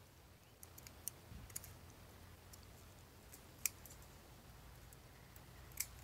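Scissors snipping plastic bird netting: a handful of short, sharp snips at irregular intervals, the loudest a little past halfway and another near the end.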